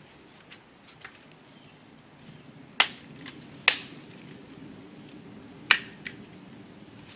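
Three sharp clicks, the first a little under three seconds in, the next about a second later and the last two seconds after that, with a few fainter ticks between, from small items being handled by hand on a stone slab.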